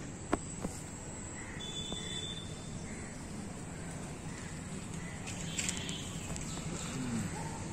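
Quiet outdoor ambience with a few faint bird calls, and two light clicks within the first second.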